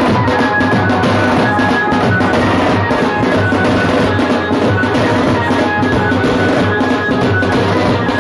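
Loud drum-heavy music with fast, continuous drumming and a high melody line of short held notes over it.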